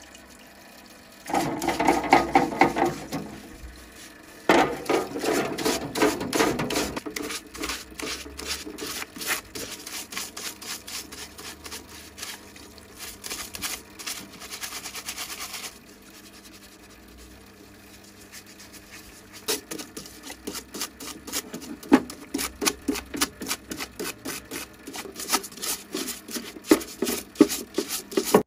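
Stiff-bristled brush scrubbing a rusty pipe cutter's frame and handle in soapy water, in quick back-and-forth scraping strokes that stop for a few seconds just past the middle.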